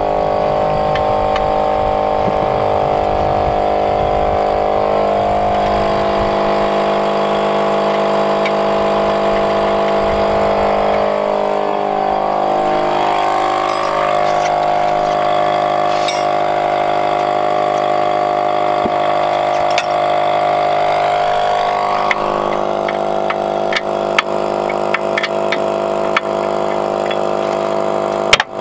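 A motor or small engine running steadily at constant speed throughout. Short clicks and knocks come in over the last few seconds.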